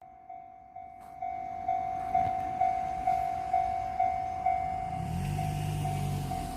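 Japanese level crossing warning bell ringing: a single electronic ding repeated about twice a second. It is faint at first and louder from about a second in. A low steady drone joins near the end, likely the approaching train.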